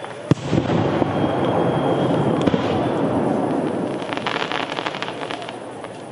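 Aerial fireworks display: a sharp bang about a third of a second in as a shell bursts, then continuous dense crackling and popping from bursting shells and crackling stars, thickest around four to five seconds in.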